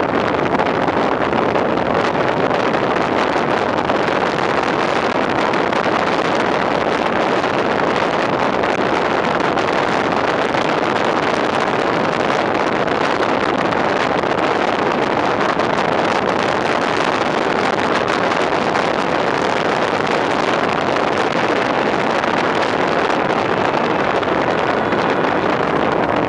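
Steady rush of wind across the microphone with road and running noise from a fire engine driving at speed.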